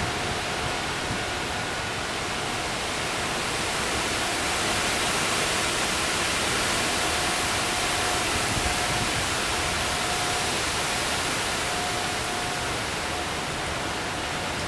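Steady hiss of a storm's heavy rain and wind, swelling a little in the middle. A faint, steady tornado-siren tone drifts in and out from a distance.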